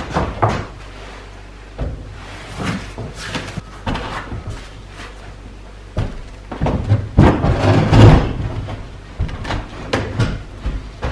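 Heavy concrete countertop being set down and shifted on its wooden base: a string of knocks, bumps and scrapes, with the loudest cluster about two thirds of the way in.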